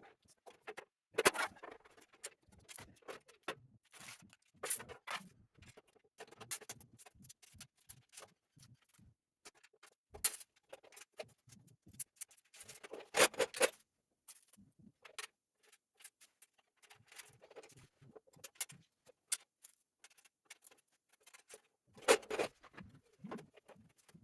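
Scattered clicks, taps and light clatter of the steel parts, bolts and hand tools of a flat-pack welding cart being put together. Louder metal knocks come about a second in, around the middle, and near the end.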